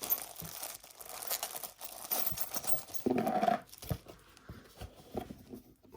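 Packaging rustling and crinkling with scattered small knocks and clicks as the eye bolt and washers are handled.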